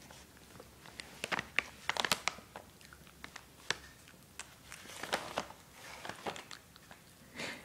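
Yorkshire terrier gnawing a chicken-wrapped chew stick held in a hand: irregular crunches and clicks of its teeth biting the stick, coming in small clusters.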